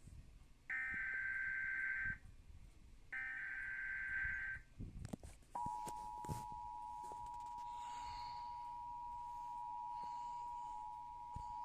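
Emergency Alert System broadcast alert: two bursts of the digital SAME header data tones, about a second apart, then a few clicks and, from about five and a half seconds in, the steady two-tone EAS attention signal (853 and 960 Hz sounded together), which holds on.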